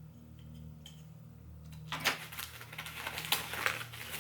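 Packing wrap rustling and crinkling with small clicks as a boxed doll is unwrapped by hand. The rustling starts about two seconds in.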